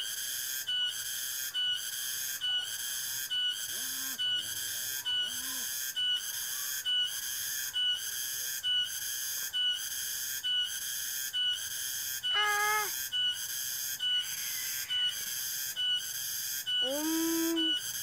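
A high, steady insect chorus, buzzing and shrill, that breaks off briefly about once a second in a regular rhythm. Two short pitched calls cut in near twelve and seventeen seconds in.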